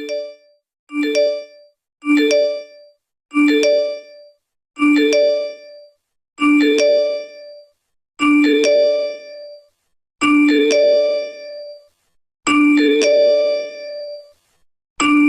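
The Apple Tri-tone text-message alert, three rising chime notes, played about ten times in a row. Each repeat is a little slower and longer than the one before, at roughly the same pitch.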